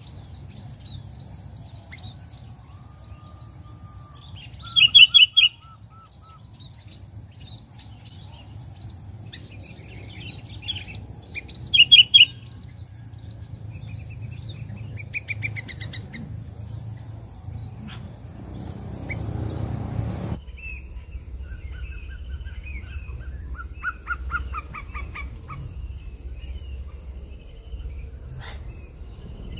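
Sooty-headed bulbuls and other small birds calling and chirping, with two loud, short rapid trills about five and twelve seconds in. A steady high-pitched whine runs underneath and jumps to a lower pitch about two-thirds of the way through.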